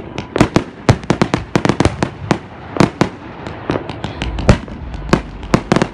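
Fireworks going off: an irregular string of sharp bangs and crackles, several a second, with one heavier boom a little past the middle.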